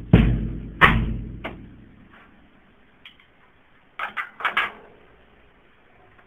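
Three percussive thumps about three-quarters of a second apart, each ringing out, the third softer: a percussion part being laid down for a loop. A handful of light clicks follow about three to four and a half seconds in.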